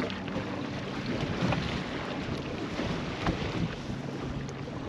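Wind buffeting the microphone on a small boat rocking in choppy water, with waves slapping and a steady low hum from the boat's motor.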